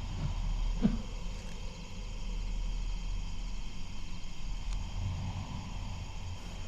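Outdoor nature ambience: steady insect chirring over a constant low rumble, with one soft knock about a second in.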